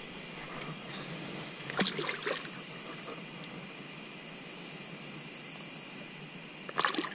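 Faint trickling and lapping of shallow water around a flathead catfish held by the lip as it is being released, with two brief small splashes, about two seconds in and near the end.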